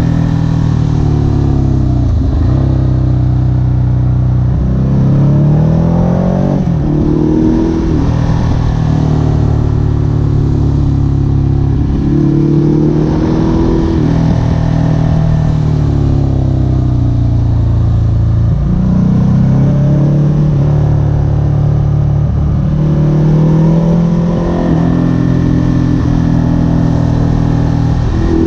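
Ducati Hypermotard SP's L-twin engine running loud under throttle. Its pitch climbs and then drops sharply several times, as when pulling through the gears with upshifts.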